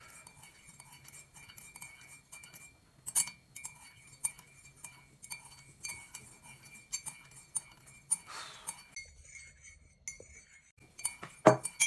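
A metal spoon stirring in a glass, clinking repeatedly against its sides at about two or three strikes a second while the glass rings faintly. A brief scraping sound comes a little past halfway, and a louder knock comes near the end.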